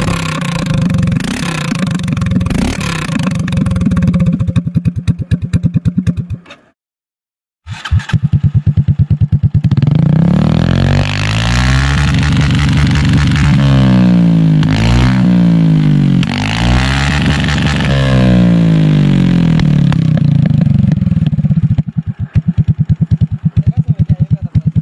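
Aprilia SR150 scooter's single-cylinder four-stroke engine being revved with no silencer, only the open header stub, in rapid pulsing blips. Then, after a second of silence, it is revved with an Akrapovic slip-on silencer fitted, rising and falling in pitch again and again, with rapid pulsing near the end as the revs drop.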